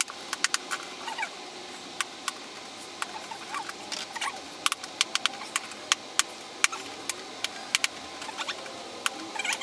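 Gloved hands wrenching at stuck plastic caps on Resoltech epoxy resin containers: irregular sharp clicks and cracks of plastic, with short squeaks. She thinks the caps stick because they were swapped between the pots.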